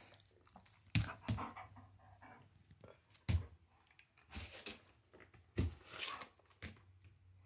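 German Shepherd panting and moving about right next to the microphone, broken by a few sudden knocks.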